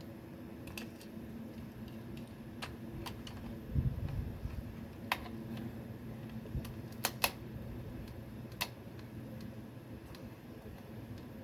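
Scattered sharp plastic clicks and a dull thump as attachments are handled and snapped onto a toy M416 gun, over a steady low hum.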